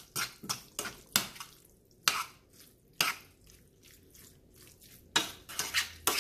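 A utensil stirring and scraping in a pan, clicking irregularly against the metal as it mixes pieces of mutton liver into the thick, wet masala. The strikes come in quick clusters at the start and again near the end, with softer scraping between.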